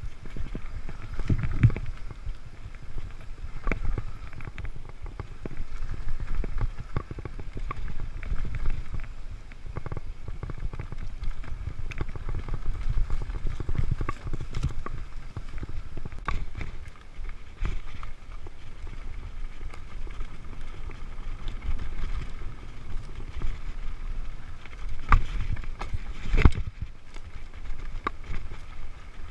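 Mountain bike ridden fast along a dirt trail, heard from a helmet camera: a continuous rumble of the tyres on dirt with constant rattling and clicking from the bike. Two sharper knocks a few seconds before the end.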